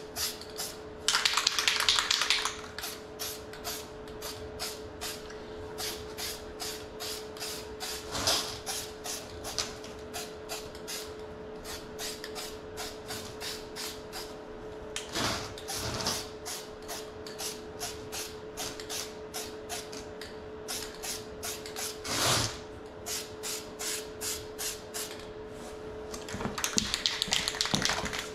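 Aerosol spray can of engine primer spraying in bursts: a long hiss about a second in, shorter hisses around eight, fifteen and twenty-two seconds, and another long hiss near the end. A steady rapid ticking, about two to three a second, and a faint steady hum run underneath.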